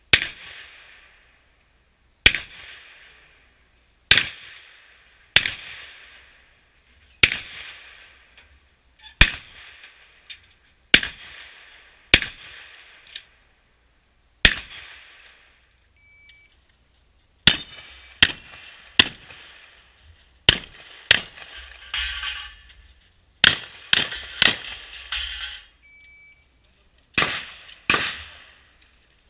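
Shotgun shots from an IPSC practical shotgun stage: single shots about every two seconds at first, then faster strings of shots, each trailing off in a ringing decay. A short electronic beep, a shot timer's start signal, sounds midway and again near the end, each just before a new string of shots.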